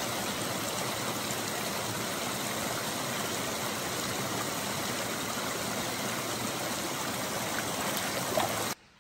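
Steady rush of a stream's running water, cutting off abruptly near the end.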